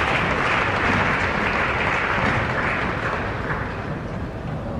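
Crowd applauding, the clapping dying away near the end.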